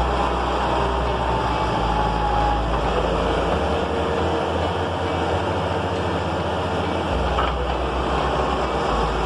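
Kubota tractor's diesel engine running steadily while it works through mud, its low note shifting a few times.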